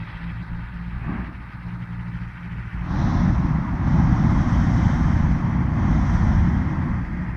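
A hot-air airship's propeller engine running with a steady hum; about three seconds in, a loud propane burner blast starts abruptly and runs for about four seconds before easing off.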